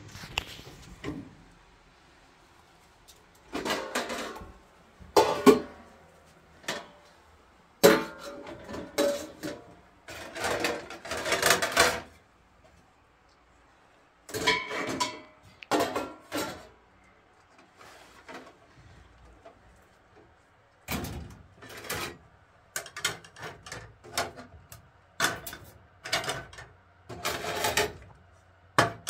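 Dishes being gathered and stacked: metal trays, pans, plastic plates and cutlery knocking and clattering together in irregular clusters, with short pauses between.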